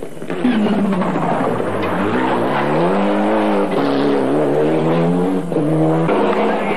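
Mitsubishi Lancer Evolution rally car's turbocharged four-cylinder engine revving hard at full throttle, its pitch climbing and dropping several times as it changes gear on the stage.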